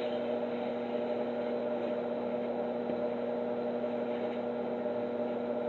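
AC stick welder humming steadily at idle, with no arc struck yet.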